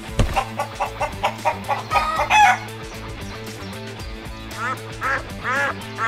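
Dubbed farmyard sound effects over background music: a quick run of chicken clucks ending in a louder squawk, then three duck quacks near the end.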